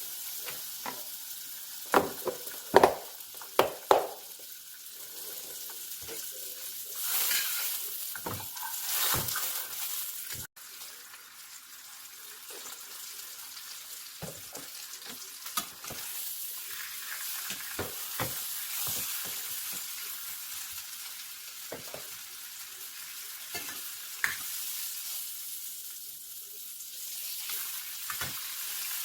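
Food sizzling in a frying pan, a steady hiss, with scattered knocks of a utensil against the pan; the loudest knocks come in a cluster about two to four seconds in.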